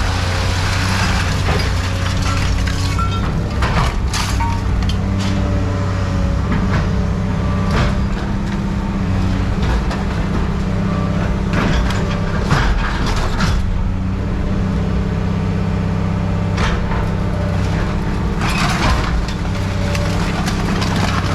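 A steady engine or motor hum runs throughout, with scattered clanks and crunches of scrap metal being handled and dropped.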